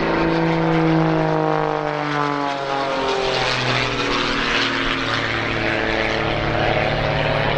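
Muscle Biplane aerobatic biplane's piston engine and propeller droning overhead during aerobatics. The note falls in pitch over the first three seconds, then runs lower and rougher with more rushing noise.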